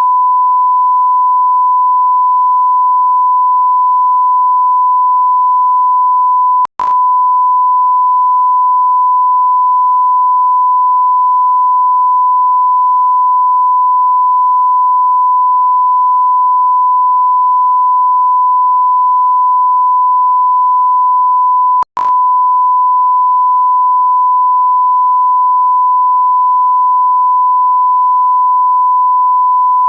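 A continuous electronic beep: one steady pure tone held at a constant pitch, broken twice by a brief click-like dropout, about a quarter of the way in and again about three quarters through.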